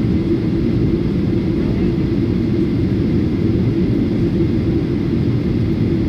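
Steady low rumble with a constant hum inside a jet airliner's cabin as it rolls along the ground after landing.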